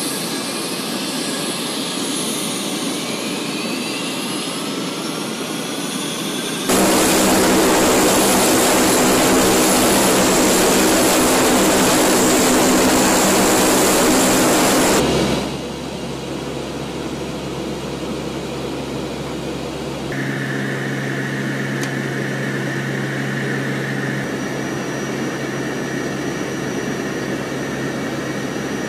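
Lockheed AC-130 gunship's four Allison T56 turboprop engines and propellers running, with rising turbine whines over the first few seconds. The sound turns much louder and steady from about seven seconds in. It drops back at about fifteen seconds to a quieter drone with a steady high tone.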